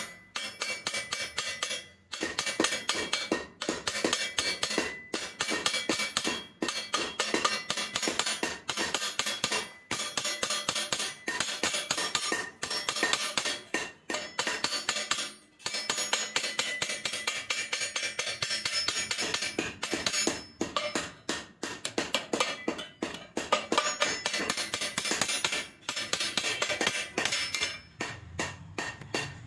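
Small hammer rapidly tapping a thin sheet-metal tube against a steel stake, a fast run of light, clinking metal strikes, several a second, with a few brief pauses, as the tube for a kulfi mold is formed. The strikes thin out near the end.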